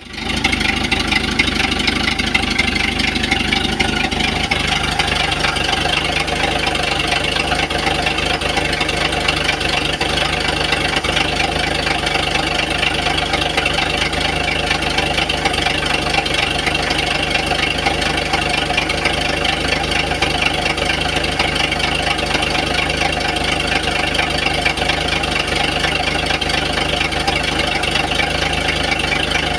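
Engine running steadily at idle with a knock, which the owner presents as an engine knock problem.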